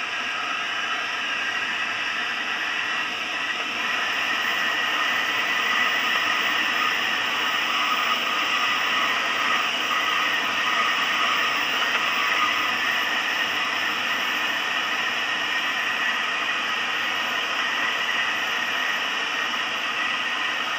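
Steady rush of airflow over the canopy of a Schleicher ASK 23b glider in flight, with thin steady whistling tones in it; it swells a little in the middle.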